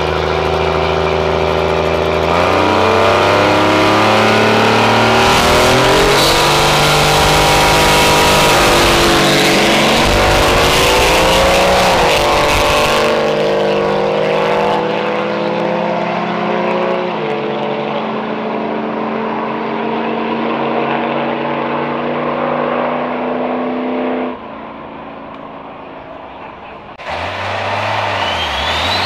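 Drag-racing engine revving hard: steady engine tones give way about two seconds in to a loud stretch of several seconds in which the pitch climbs and bends, then it settles into a steadier, quieter drone.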